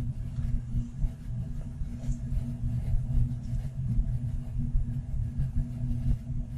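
Low-powered ceiling bathroom exhaust fan running, a steady low rumble with a faint hum, as it draws air through a homemade flow-meter box held over its grille.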